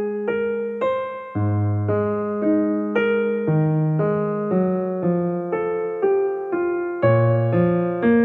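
Background piano music: a calm keyboard piece with notes struck about twice a second and fading over lower bass notes.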